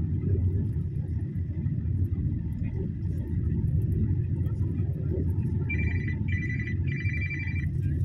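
Steady road and engine rumble inside a moving car's cabin. About six seconds in, a high electronic beep starts, repeating in short bursts.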